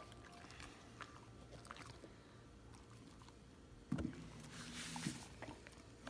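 Faint small clicks of a Samoyed licking and nibbling at a dog birthday cake. About four seconds in there is a thump, then a short rustle as the dog moves against the cake box.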